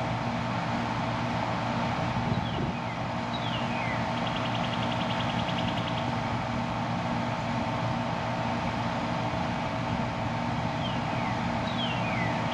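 Central air conditioner's outdoor unit running steadily, a constant mechanical hum with a fan's rush. Twice a bird calls, a couple of falling high notes and then a quick trill.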